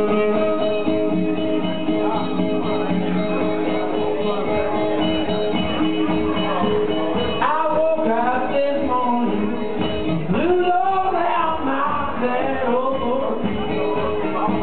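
Live blues from a one-man band: a guitar rings out with sustained notes, and about halfway through a man's voice comes in, singing in wavering, sliding lines.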